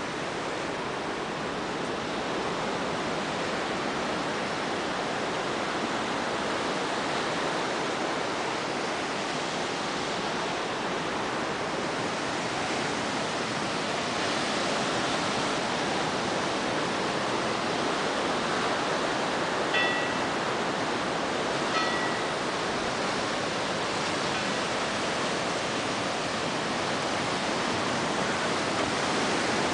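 Sea surf breaking over coastal rocks: a steady, even rushing hiss. Two brief high chirps cut through about two-thirds of the way in.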